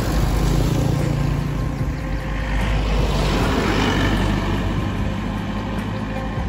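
Road traffic passing, with a pickup truck driving close by about three to four seconds in: its engine and tyre noise swell and fade over a steady low rumble.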